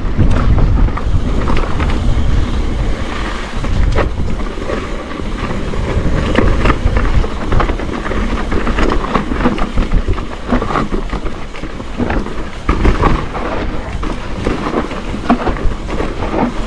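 Wind rumbling across the microphone of a mountain bike riding fast down a dirt trail, with the bike and tyres rattling and clattering over the rough ground.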